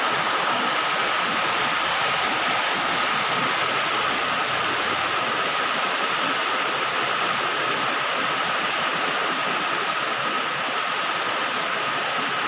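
Rain falling steadily on a galvalume sheet-metal roof: a dense, even patter of drops with no let-up. A faint steady tone runs underneath.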